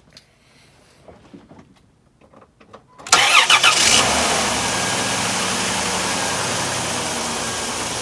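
2002 Chrysler Town and Country V6 starting about three seconds in. The starter cranks for under a second, then the engine catches and settles into a steady idle. It starts on the first try, showing that cleaning the corroded power-cable connection at the fuse box cured the intermittent no-crank.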